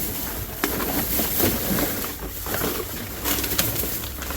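Rustling and crackling of plastic trash bags and items being handled in a dumpster, over a steady low hum.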